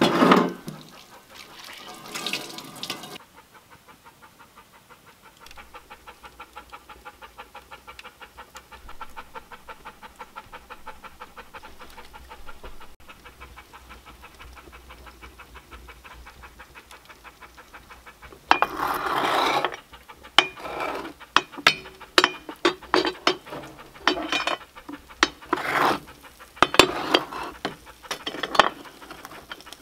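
Water splashing in a sink as a cast iron pan is rinsed for the first few seconds, then a wood fire crackling steadily in a cob oven. From a little past halfway, louder scrapes and knocks of a metal tool working in the oven's fire.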